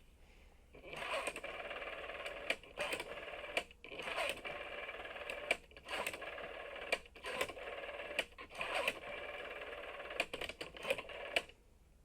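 Telephone line tone, a steady buzzy hum of several pitches, heard over a handset and repeatedly broken by sharp clicks and brief dropouts.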